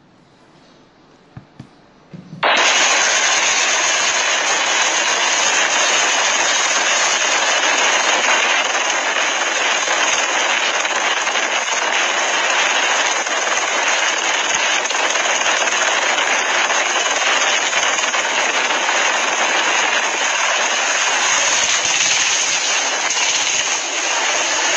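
A quiet stretch with a few faint clicks, then, abruptly about two and a half seconds in, the loud steady rushing noise of a helicopter hovering low, its rotor downwash blasting the microphone. A faint thin high tone runs under it for most of its length.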